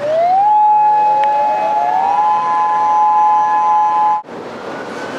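Two outdoor warning sirens winding up one after the other, each rising in pitch and then holding a steady wail, over a rushing background noise. The sirens cut off abruptly about four seconds in, leaving only the rushing noise.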